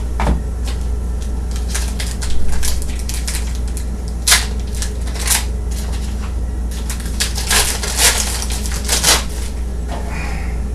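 Trading cards and their foil or plastic packaging being handled: irregular crinkling, rustling and light clicks, with a cluster of louder crackles around the middle and later part, over a steady low hum.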